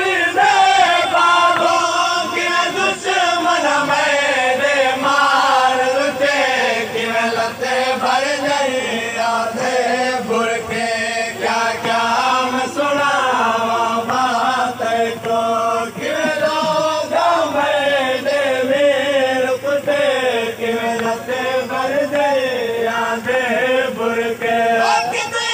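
Men's voices chanting a Shia noha, a mourning lament, in long, wavering held lines, with the crowd's voices joining in.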